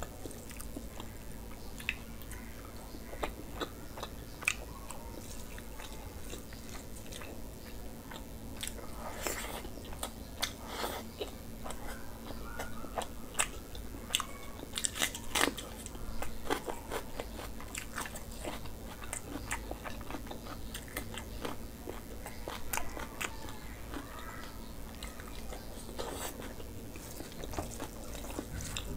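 Close-miked eating of rice and curry by hand: wet chewing and biting with irregular clicks and smacks, busiest in the middle, along with fingers working the food on the plate. A steady low hum runs underneath.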